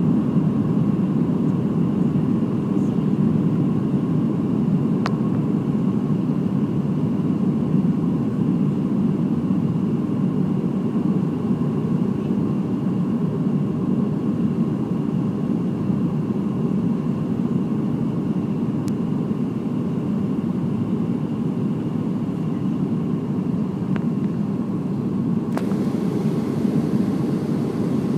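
Jet airliner cabin noise on descent, heard from a window seat over the wing: a steady drone of engines and airflow with a faint high whine. A little more hiss comes in near the end.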